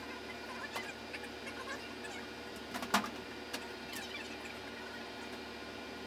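Knocks and rattles from a large white appliance being tipped back and wheeled on a hand truck, the loudest knock about three seconds in, over a steady background hum.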